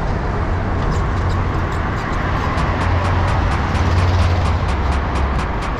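Wind buffeting the microphone of a moving bicycle, with road and traffic noise underneath: a loud, steady rumble.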